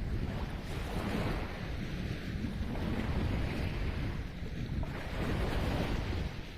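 Sea waves washing onto the shore, swelling and fading every couple of seconds, under strong wind buffeting the microphone with a low rumble.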